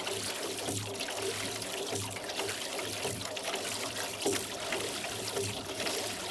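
Rowboat oars dipping and pulling through lake water, with steady trickling and small splashes as water runs off the blades.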